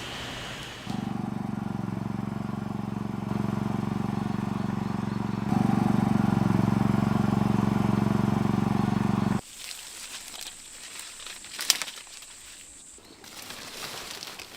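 An engine running steadily, its level stepping up twice, until it cuts off abruptly about nine seconds in. Quieter outdoor rustling follows, with a sharp click and a thin high whine.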